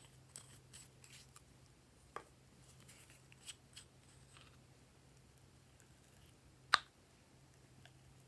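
Sparse soft clicks and light taps from hands working slime and its add-ins, with one sharp snap about two-thirds of the way through, over a faint low hum.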